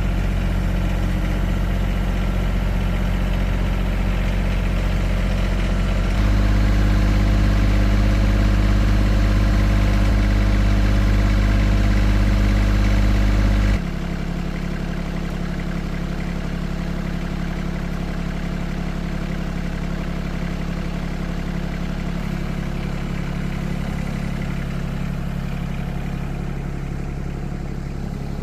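Engine running steadily, with abrupt changes in level: louder about six seconds in, then quieter from about fourteen seconds in.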